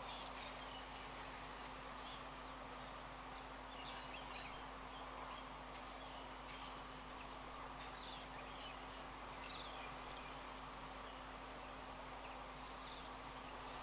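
Outdoor bush ambience: many short, scattered high bird chirps and twitters over a faint steady hiss and a constant low electrical hum.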